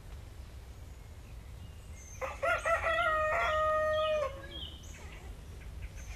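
A rooster crowing once: a single call of about two seconds that wavers at first, then holds its pitch and drops away at the end.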